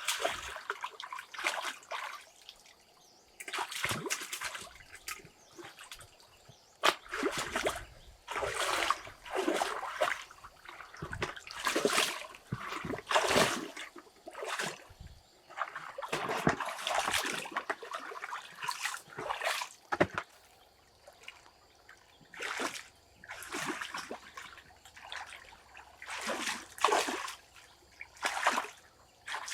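Water splashing and sloshing in short, irregular bursts, roughly one or two a second, with brief pauses between.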